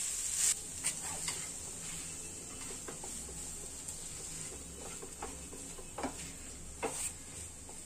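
Silicone spatula stirring grated boiled potatoes and spices in a nonstick frying pan: soft scrapes and a few light taps against the pan, over a faint steady hiss.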